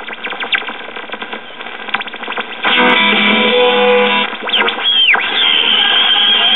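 A 1969 GE solid state AM clock radio being tuned across the dial: snatches of station music alternate with crackling static. In the last seconds a whistle sweeps down, then a high whistle holds steady between stations. This is the squealing caused by an open 10 µF electrolytic capacitor in the AVC circuit.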